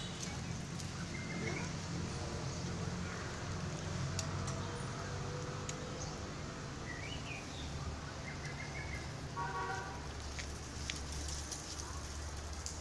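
Outdoor ambience: a steady low rumble with a few short, high animal calls, one rising chirp about seven seconds in and a longer call near ten seconds.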